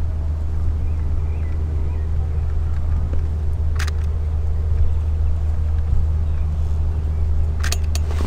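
Light propeller aircraft's engine droning steadily overhead, a low, even hum with a faint steady tone above it. A few short clicks sound about four seconds in and twice near the end.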